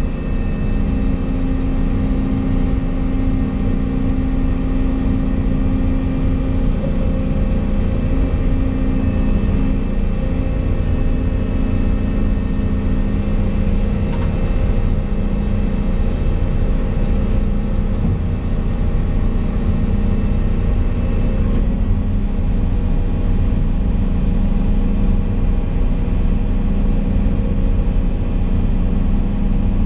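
Volvo EC220 excavator's diesel engine and hydraulics running steadily, heard from inside the cab as the machine swings a suspended pipe. A faint click about halfway through.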